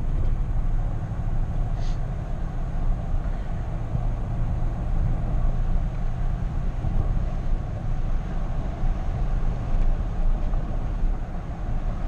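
Car driving at a steady pace: a low, steady rumble of engine and tyre noise.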